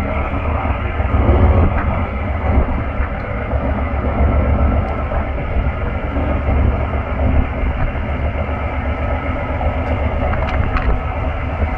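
Fishing trawler's engine running with a steady low rumble.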